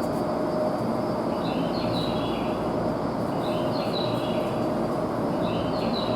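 Steady hum and rumble of an electric train standing at a station platform, with a short high electronic chirping pattern repeating about every two seconds.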